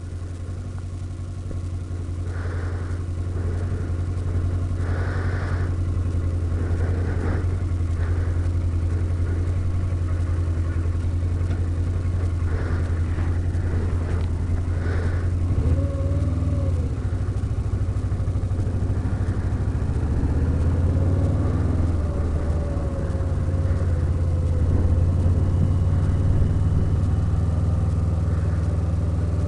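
Motorcycle engine running, heard from inside the rider's helmet. It grows louder over the first few seconds, and from about halfway its pitch rises and falls with changing revs.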